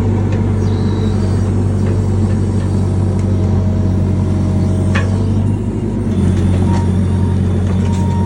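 Excavator's diesel engine running steadily with a low hum, with one sharp crack about five seconds in.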